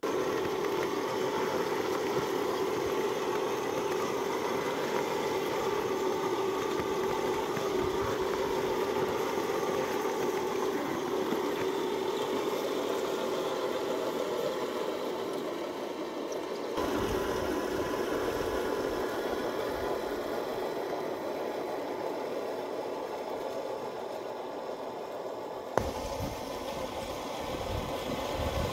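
1/10 scale RC Jagdpanther tank model running over snow: a steady mechanical hum from its drive with track noise. The sound changes abruptly twice.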